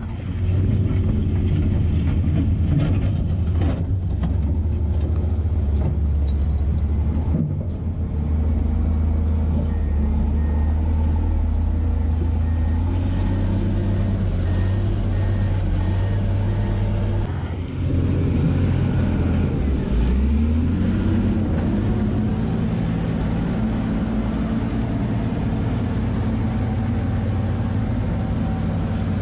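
Caterpillar 950F wheel loader's diesel engine running steadily, its note rising and falling a little past halfway. A reversing alarm beeps about once a second for several seconds near the middle.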